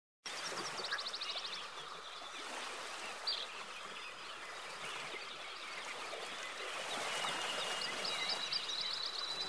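Outdoor bird ambience starting abruptly just after the beginning: a dense chatter of many birds calling over a steady hiss, with quick high songbird trills near the start and again near the end.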